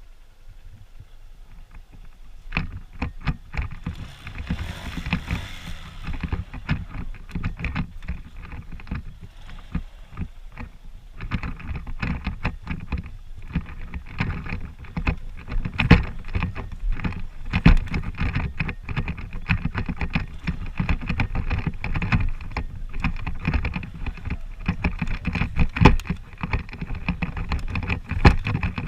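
Honda CG125 single-cylinder motorcycle riding over a rough dirt trail, its engine running under frequent irregular knocks and rattles from the bumps; quieter for the first couple of seconds.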